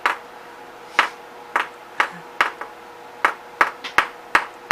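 Sharp clicking noises made over and over by a person, about a dozen at uneven intervals: the annoying noise he has just been told to stop making.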